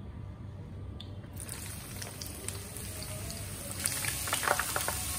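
Food going into hot cooking oil, starting to sizzle about a second and a half in: a steady frying hiss that grows, with crackles and pops building near the end.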